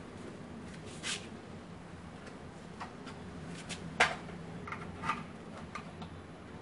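Scattered clicks and knocks from an instant electric water heater unit being hung on its wall screws and handled, about half a dozen in all, the loudest a sharp knock about four seconds in.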